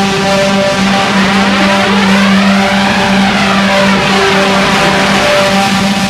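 Electronic music: a held low synth drone and sustained notes, under a noisy sweep that rises in pitch for about two seconds and falls back.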